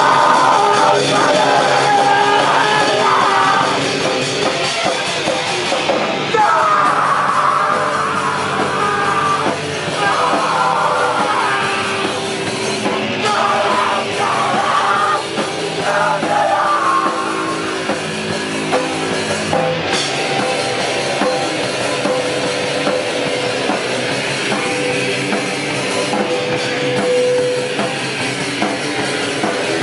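A heavy band playing live: loud distorted guitars and a drum kit, with yelled vocals, in a grind/noise style.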